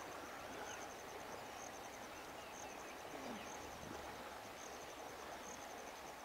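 Faint outdoor ambience: an insect chirping in quick repeated high trills over a steady soft hiss, with a few faint chirps.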